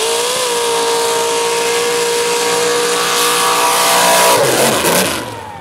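Mud drag vehicle's engine at wide-open throttle: it revs up and holds steady high revs over a loud rushing noise. About four and a half seconds in the revs drop and the engine winds down.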